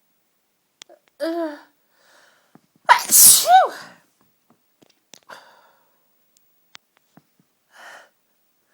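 A person's strong sneeze about three seconds in: a sharp voiced intake of breath, then the loud explosive sneeze with the voice falling in pitch. It is one of a fit of tickly cold sneezes. Two quieter breaths follow.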